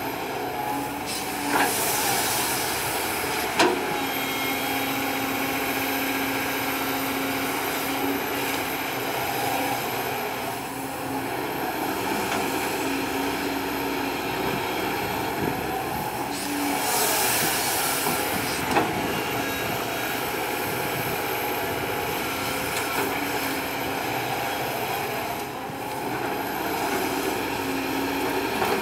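Kobelco SK200 hydraulic excavator's diesel engine running steadily under working load as it swings its boom and bucket through soil. There is a hiss twice, about two seconds in and again about seventeen seconds in, each ending in a sharp knock.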